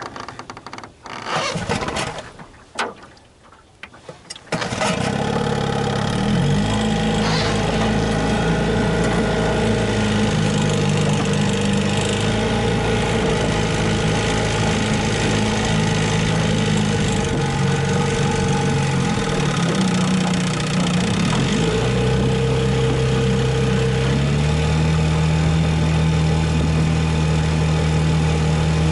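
A 1961 Johnson Seahorse two-stroke outboard motor starting: a few short bursts, then it catches about four and a half seconds in and runs steadily. Its pitch drops briefly past the twenty-second mark, then settles at a higher note.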